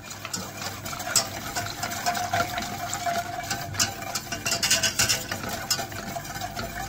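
Wire balloon whisk beating milk, sugar, starch and flour for a pudding base in a metal saucepan: a rapid, continuous clicking and scraping of the wires against the pot and through the liquid.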